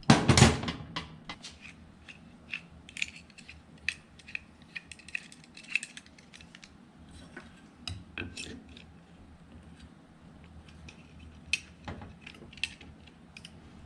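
Small metal tools and fan parts clinking and clicking as a nut on the ceiling fan is worked at by hand, with a louder clatter right at the start.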